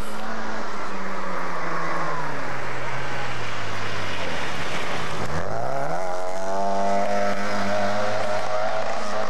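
Classic Mini rally car engine: the revs fall as it slows into a corner and sink very low about five seconds in. It then revs sharply up as it accelerates away and holds high revs.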